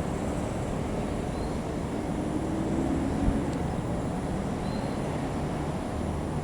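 Diesel locomotive engine running steadily, a low rumble, with a single short thump about three seconds in.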